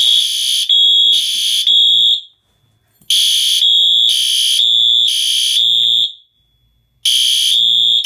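Fire alarm horn strobes, a System Sensor SpectrAlert Advanced P2R and a Wheelock AS, sounding after the pull station is pulled. They give loud, high-pitched horn beeps in the temporal-3 evacuation pattern: three beeps, a short pause, then three again, repeating.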